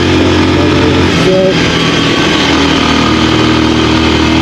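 Bajaj Pulsar 150's single-cylinder engine running at road speed over wind noise, its note shifting about a second in as the bike slows.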